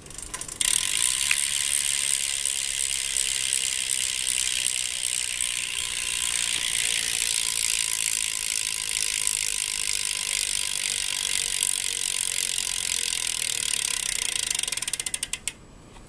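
BMX rear cassette hub with a 9-tooth driver, its freewheel pawls clicking rapidly in a steady buzz as the rear wheel freewheels. The clicks slow into separate ticks near the end as the wheel spins down. The owner calls the hub pretty loud.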